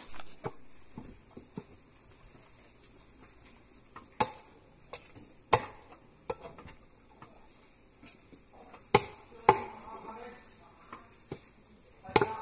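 Knife and cleaver work on a big fish on a cutting board: a handful of sharp knocks at uneven intervals, with quieter scraping and ticking between them.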